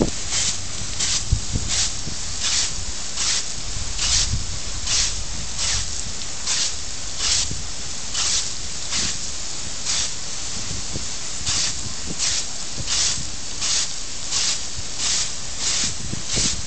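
Water jet from an open fire hydrant's spray cap hissing steadily, with a splashy surge a little more than once a second as a dog bites and laps at the stream right at the nozzle.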